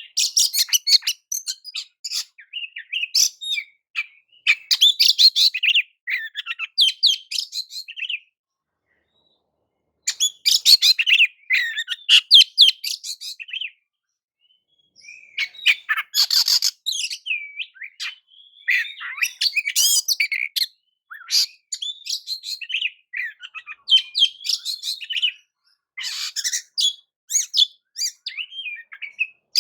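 Oriental magpie-robin (kacer) singing: varied phrases of high whistles, rapid chirps and trills, delivered in bursts with pauses of a second or two between them.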